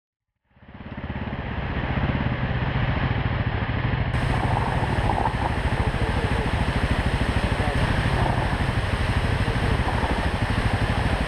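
Husqvarna TR650 Terra's single-cylinder engine running under load, a steady low pulsing beat, as the motorcycle climbs a steep track of loose gravel. The sound fades in about half a second in.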